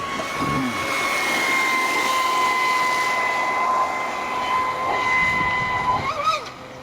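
Traxxas Spartan RC boat's brushless motor whining at speed, a steady high pitch over the hiss of the hull running through water. About six seconds in the whine wobbles briefly and cuts out as the throttle comes off.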